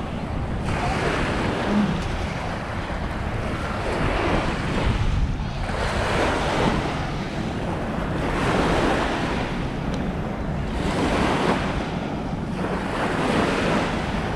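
Surf washing onto a sand beach, swelling and easing every two to three seconds, with wind buffeting the microphone.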